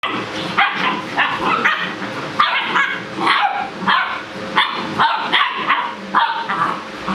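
Seven-week-old Great Dane puppies barking and yipping at play, a rapid, uneven string of short, high-pitched barks, several a second.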